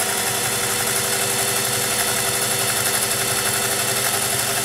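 Singer 401A Slant-O-Matic sewing machine running steadily, its motor and needle bar sewing a side-to-side domino combination stitch.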